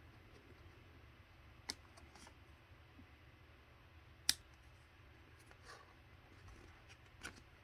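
Trading cards handled and dealt off a stack: three short sharp clicks, about three seconds apart, as single cards are flicked off and slap down on the table, the loudest a little past halfway, with faint card rustling between.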